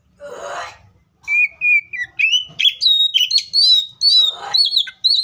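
Oriental magpie-robin singing: a harsh rasping note, then a run of clear whistled notes climbing stepwise in pitch, with a second harsh rasp near the end.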